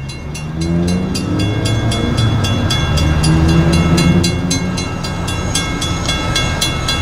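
Railroad crossing bell ringing in rapid, even strikes, over the deep rumble of a diesel locomotive engine that grows louder about halfway through.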